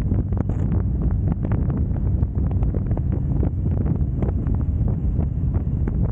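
Wind buffeting the microphone at riding speed, in uneven gusts, over the low drone of a Harley-Davidson Road Glide's V-twin engine and road noise.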